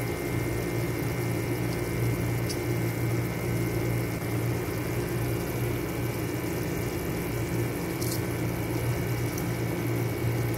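Steady hum of an electric fan running in a kitchen, even and unchanging, with a couple of faint ticks.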